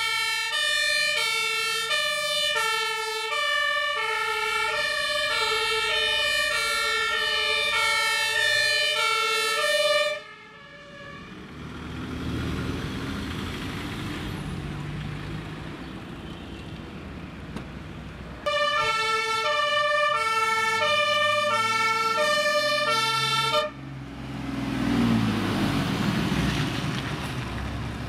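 Two-tone sirens of German fire engines on an emergency run, alternating high and low, cut off suddenly about ten seconds in; engine and tyre noise of passing vehicles follows. The two-tone sirens sound again for about five seconds in the second half and stop abruptly, then a truck's diesel engine pulls away with rising pitch.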